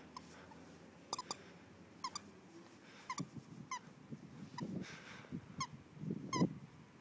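Squeaker in a plush dog toy squeaking in short, high squeaks, about ten of them, some in quick pairs, as a wire-haired fox terrier puppy bites and tugs the toy.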